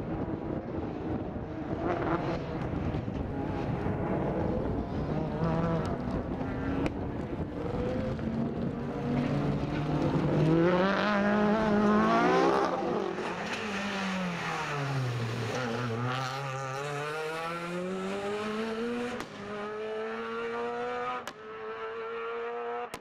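Peugeot 206 rally car's four-cylinder petrol engine revving hard through the gears. The pitch climbs to its loudest about halfway, drops steeply as the car slows, then climbs again in steps through upshifts.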